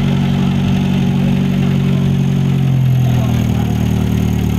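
Four-cylinder engine of a classic MG TD roadster running at low speed as the car drives slowly past, with a steady low note that drops a little about three seconds in.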